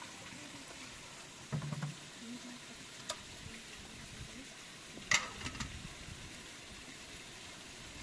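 Steady hiss of running water, with a few sharp clicks and knocks, the loudest about five seconds in.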